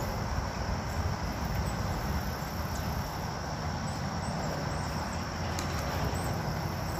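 Steady low outdoor rumble with faint insects chirring steadily high above it.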